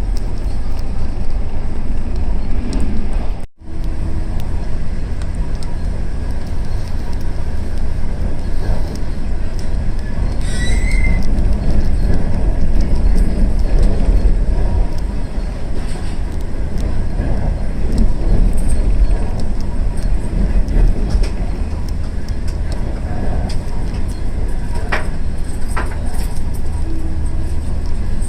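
Steady low rumble of a passenger train running on the track, heard from on board. The sound breaks off briefly about three and a half seconds in.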